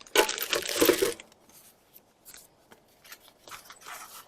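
Rustling, crinkling handling noise for about a second as items are moved about in a toolbox, then a few faint rustles near the end.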